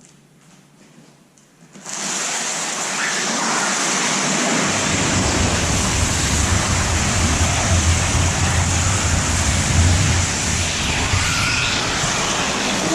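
Loud, steady rushing noise that starts suddenly about two seconds in, with a low hum joining a couple of seconds later.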